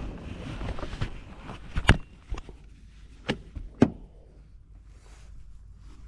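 Gear being rummaged and moved about in the back of a van, with rustling and handling noise. Then come several sharp knocks and clunks, the loudest about two seconds in and others over the next two seconds.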